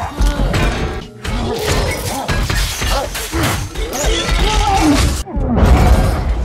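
Action-movie soundtrack: music mixed with repeated crashing and smashing impacts from a fight scene.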